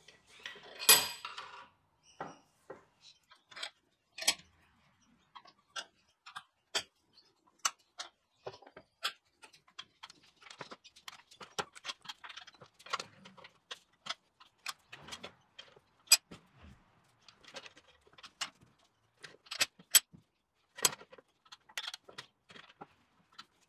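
Irregular sharp metal clicks and clinks, a few a second, as a mild steel flat bar is worked in a cast iron bench vise, with a louder clattering rattle about a second in.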